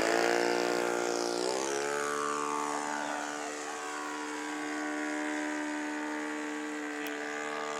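Model airplane engine running steadily; its pitch rises about a second and a half in, then holds.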